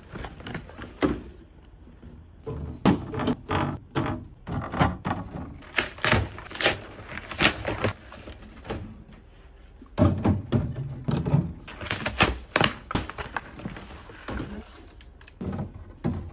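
Plastic drink bottles being lifted out of a cardboard box and set down: a string of irregular knocks and thunks as the bottles bump against each other, the cardboard and a shelf, with rustling of the box between them.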